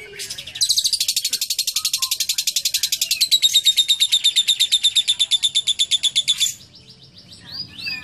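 Lovebird giving its long chattering trill (ngekek): a rapid run of about ten high, repeated notes a second lasting about six seconds, then stopping abruptly, with a few shorter calls near the end.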